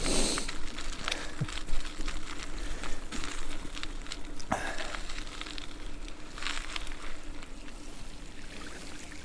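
E-bike tyres rolling over wet, slushy pavement: a steady hiss with lots of small crackles, and a faint steady hum underneath.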